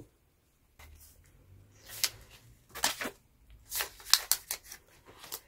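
A paper banknote and a clear plastic binder pocket rustling and crinkling as the note is slipped into the pocket, heard as a series of short, sharp rustles and clicks.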